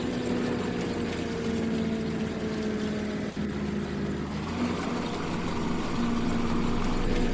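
Combine harvester running steadily, its engine and machinery giving a constant low hum with a steady whine.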